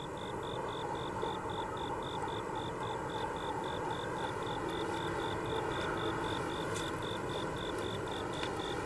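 Outdoor night ambience: insects chirping in an even pulsing rhythm, about five pulses a second, over a steady background hum.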